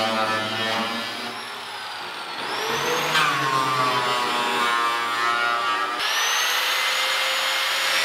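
Electric angle grinder with a cutoff wheel cutting through the steel bed side of a pickup. Its whine sags for a moment about a second in and climbs back about three seconds in, and it rises again after a brief break about six seconds in.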